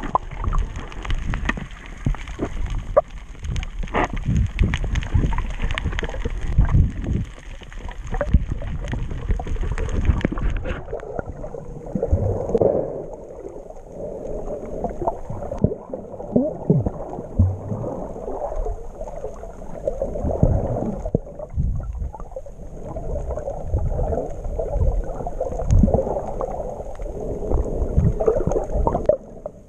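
Water splashing and sloshing against the camera at the surface while snorkeling. About ten seconds in the sound turns abruptly muffled and dull as the camera goes under, leaving underwater gurgling and bubbling.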